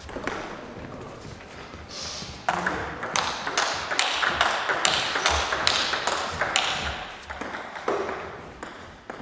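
Celluloid table tennis ball bouncing repeatedly, a string of light clicks at about three a second that starts a couple of seconds in.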